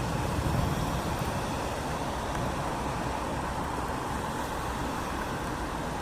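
Steady rain on a city street, with the last of a low thunder rumble dying away in the first second.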